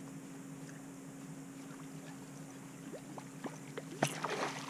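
A bass blowing up on a topwater lure right beside the boat: a sudden splash about four seconds in, lasting about half a second, after a few light ticks. A steady low hum runs underneath.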